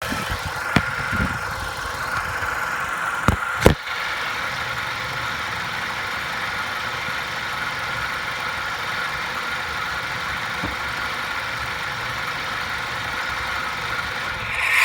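A 2004 Mazda6 making the loud, steady mechanical running sound its owner hears when the car is switched off, with a sharp click early on and two more close together a few seconds in. The owner does not know what is causing it.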